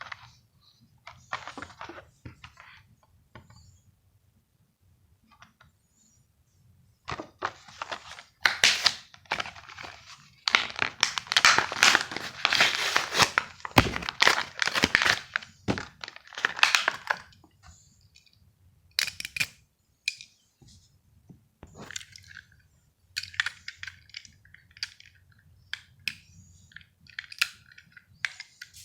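Hot Wheels card-and-plastic blister pack being torn open: plastic crackling and card tearing, busiest and loudest in the middle, followed by scattered clicks and taps as the die-cast car and packaging are handled.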